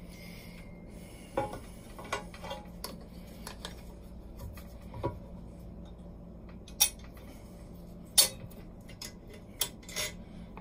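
Hard clicks and knocks of plastic and metal as the Tecma macerating toilet's 12-volt pump motor assembly is handled and set back into its mount in the toilet base. A handful of sharp, separate knocks, the loudest about 7 and 8 seconds in.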